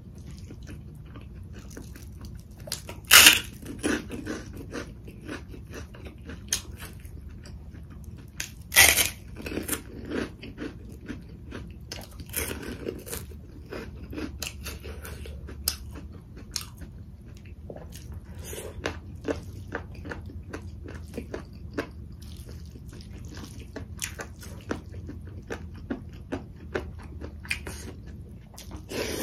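Close-miked eating sounds: chewing and mouth noises with a few crunchy bites, the two loudest about three and nine seconds in.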